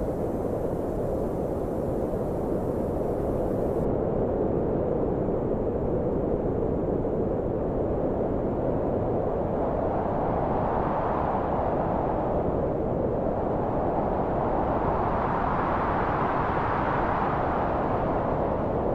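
Dark ambient noise drone: a dense, low wash of noise with no clear notes, steady in loudness, that swells brighter twice, about halfway through and again near the end.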